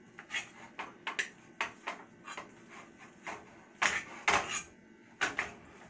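A cooking utensil scraping and knocking against a pot while breaking up ground meat: uneven clicks and scrapes about once or twice a second, loudest a little past the middle.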